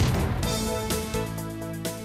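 Background music with held notes over a low bass line.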